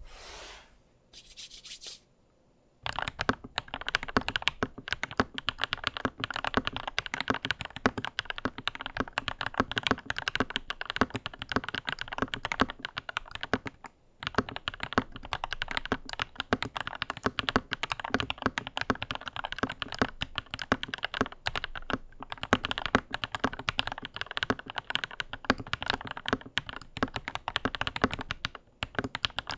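Two short hissing sounds, then from about three seconds in a Lychee G80 75% mechanical keyboard with JWK Black linear switches and Durock plate-mounted spacebar stabilizers typed on fast and continuously. There are a few brief pauses in the typing.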